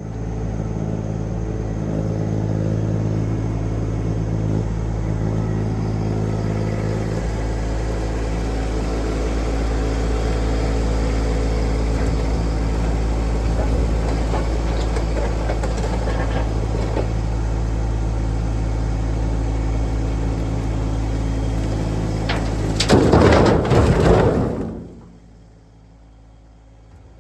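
A motor vehicle engine running steadily at a constant speed. Near the end there is a louder rush of noise, after which the engine sound drops away.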